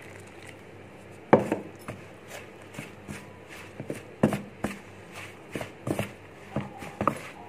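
Wooden spatula stirring wheat flour and warm water in a plastic bowl to mix the dough: irregular scrapes and knocks against the bowl, roughly two a second, the first and loudest about a second in.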